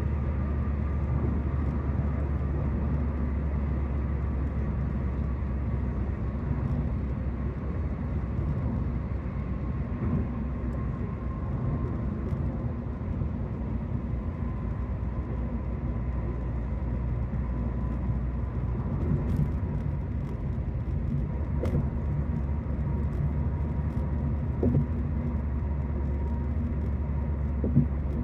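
Car cabin noise at highway speed: a steady low rumble of tyres and engine, with a faint high whine that drifts slowly lower, and a light knock near the end.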